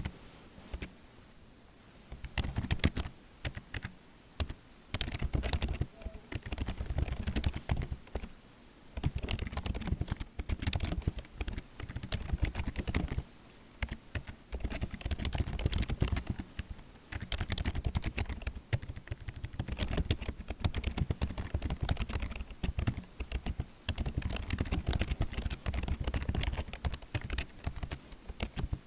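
Fast typing on a computer keyboard: rapid runs of keystroke clicks lasting a few seconds each, broken by short pauses.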